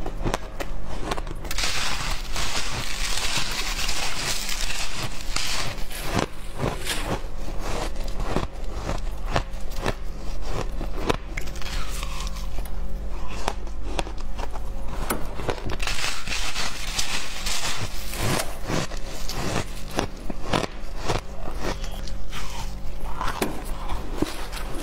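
Close-miked crunching of shaved ice being bitten and chewed: a rapid run of sharp crunches and crackles, with icy scraping and crumbling as gloved hands dig into the tray of ice.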